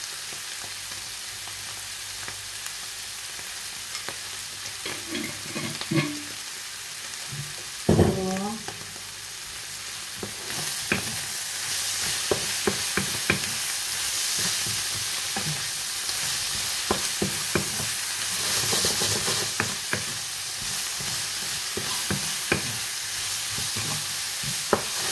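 Beef sizzling as it fries in a pan, stirred with a utensil that clicks and scrapes against the pan. There is a loud clatter about eight seconds in, and the sizzling grows louder from about ten seconds in.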